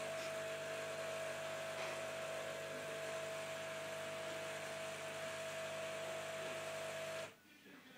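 A small electric motor humming steadily with a high whine, cutting off suddenly about seven seconds in.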